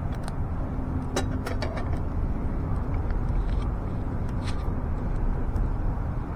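Campfire of burning wood crackling, with a handful of sharp irregular pops over a steady low rumble.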